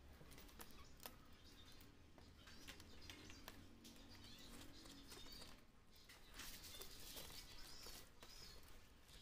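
Near-silent workshop with scattered small clicks and scratches as fingers pick at the old polarizer film along the edge of an LCD panel, and faint high chirping in the background.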